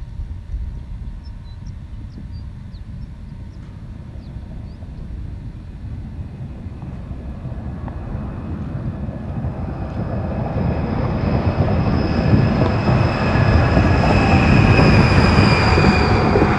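Toyota Project Portal hydrogen fuel-cell Class 8 truck driving up and passing by: a rumble that swells from about halfway through and is loudest near the end, with a steady high whine that grows along with it and no diesel engine note.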